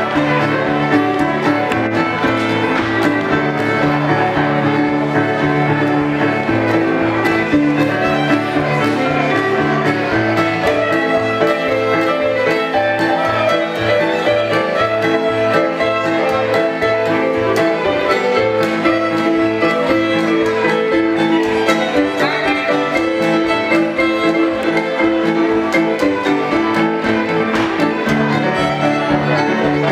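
Live contra dance band music: a fiddle bowing a dance tune over keyboard accompaniment from a Casio Privia digital piano, with a steady, even beat.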